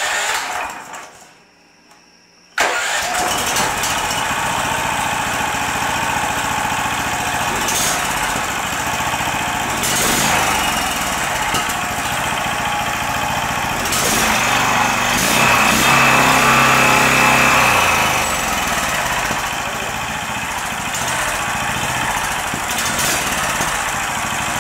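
Brand-new small gasoline engine, fitted with a golf-cart clutch, on its first test run: a short burst of electric-starter cranking, then after a couple of seconds the engine is running steadily. It runs louder for a few seconds a little past the middle.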